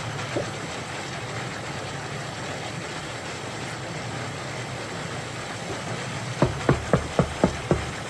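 Six quick, evenly spaced knocks on a door, about four a second, near the end, over a steady background hiss; the knock of the pizza delivery arriving.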